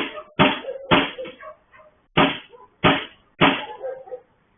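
Heavy blows banging on a gate, picked up by a surveillance camera's microphone: three strikes about half a second apart, a short pause, then three more, each with a brief ringing after it.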